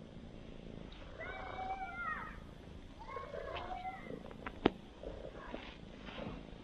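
Two drawn-out, wavering animal cries about a second apart, fairly faint. A single sharp click comes just after the second cry.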